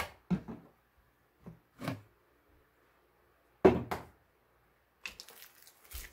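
Jars and food containers being picked up and set down on a kitchen countertop: a few separate clunks, the loudest a little past the middle, with lighter clattering near the end.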